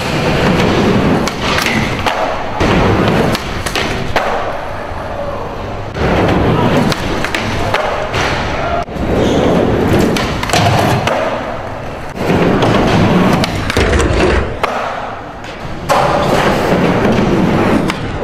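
Skateboard wheels rolling on concrete, with board pops, grinds on a handrail and ledge, and repeated landing thuds and clacks across several tricks.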